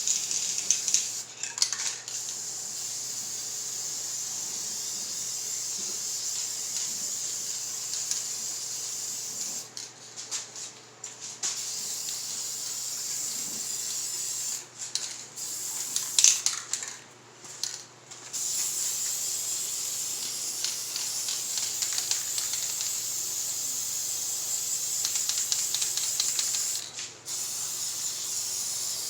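Spray paint hissing out in long steady passes, broken by several brief pauses.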